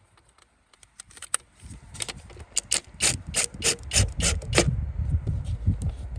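Ratchet wrench being worked in a run of sharp clicks, about three a second, starting about two seconds in and stopping near the end, over a low rumbling handling noise.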